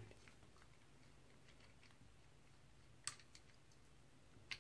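Near silence, with two faint metallic clicks about three seconds in and near the end as the carburetor's choke plunger assembly is handled and worked loose by hand.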